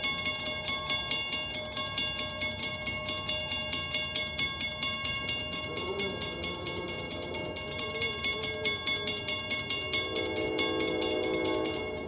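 Railroad crossing bell ringing in rapid, even strikes while the crossing gates come down. Near the end a train horn starts to sound from the approaching train.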